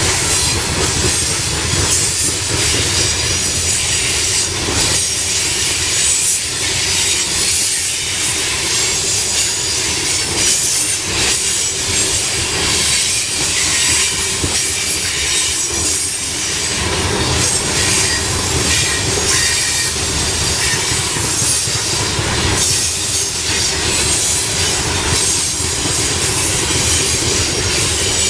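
Coal cars of a freight train rolling steadily past on steel wheels, with a high-pitched wheel squeal from the rails coming and going.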